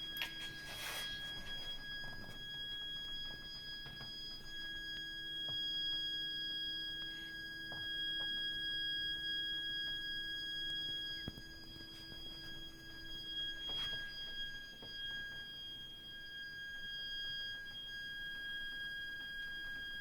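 Abnormal, continuous, high-pitched shrieking from a heat interface unit (HIU) and its heating pipework: one steady shrill whistle with overtones above it, with brief rustles about a second in and near 14 seconds.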